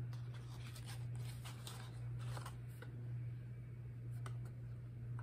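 Faint rustling and light clicks as a cardboard box of home-canning jar lids is handled and opened, over a steady low hum.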